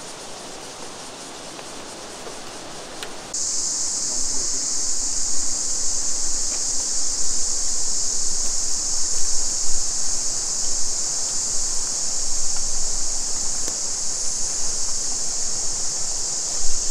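Creek water rushing. About three seconds in, a loud chorus of cicadas sets in suddenly as a steady high-pitched buzz and holds over the water.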